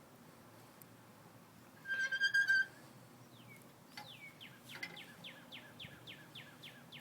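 Birds calling: one loud, steady-pitched call lasting under a second about two seconds in, then from about three seconds on a rapid run of short falling notes, about four a second.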